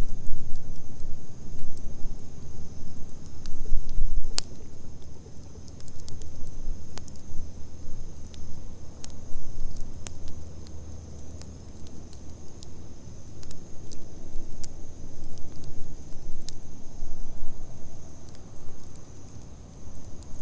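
Wood bonfire crackling, with sharp pops scattered irregularly over a low rumble. A steady, high insect trill runs underneath.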